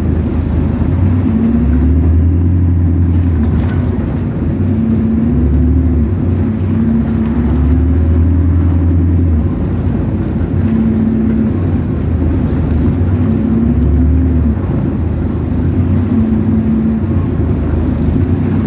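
Bus engine running under way, its pitch rising and falling several times as it pulls and eases off, with a steady low drone beneath.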